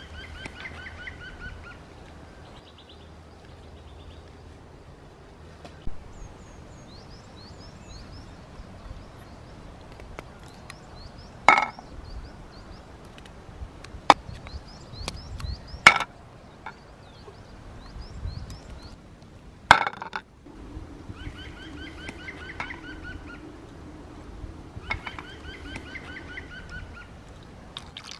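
Raw chestnuts dropped by hand into a small aluminium pan, giving four sharp clanks several seconds apart, the loudest sounds here. Between them come birdsong and bursts of repeated, cackling bird calls.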